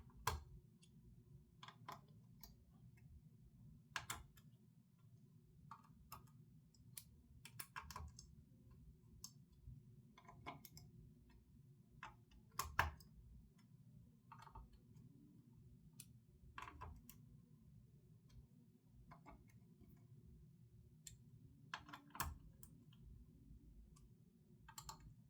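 Scattered small clicks and taps, one every second or two, over a faint low hum: a screwdriver tightening the spring-loaded heatsink screws on a graphics card a turn at a time.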